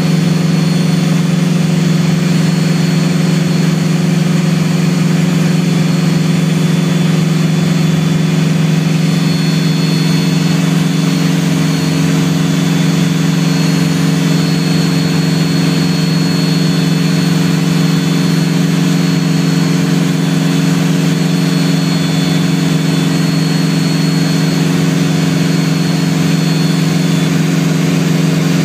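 Piper Seneca piston engine noise heard from inside the cabin in flight: a steady, even drone with a constant low hum and a faint high whine, holding the same power throughout.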